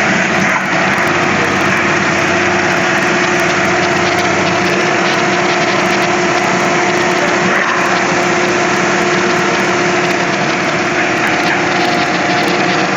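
Lexus GS 300's inline-six engine idling steadily at an even pitch.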